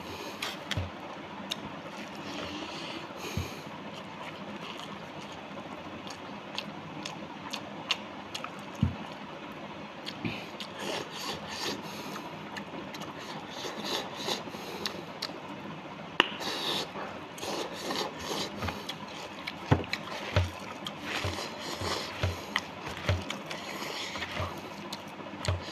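A man eating rice with his hands: chewing and smacking his lips, with his fingers scooping and scraping through the rice, heard as many short clicks and smacks over a low steady hiss.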